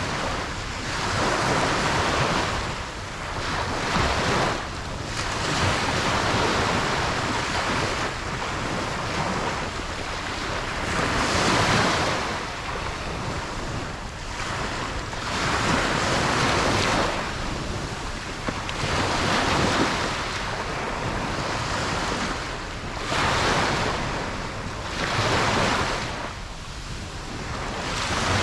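Ocean waves breaking and washing up on a beach, a continuous rushing that swells and ebbs every few seconds, with some wind noise on the microphone.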